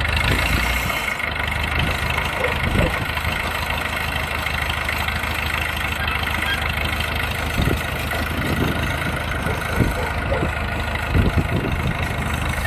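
Fiat crawler tractor's engine running steadily at low revs as the tractor creeps along on its tracks, with a few low thumps in the second half.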